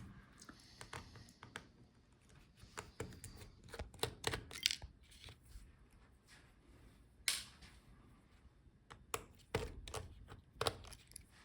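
Scattered light clicks and taps of a small screwdriver and tiny screws being handled on a laptop's internals during disassembly, with a cluster of clicks in the middle and another near the end.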